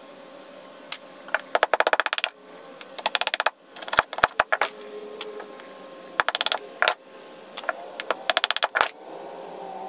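An axe splitting a small block of wood into thin pieces: several short bursts of rapid crackling clicks as the wood splits, with a few sharp knocks in between.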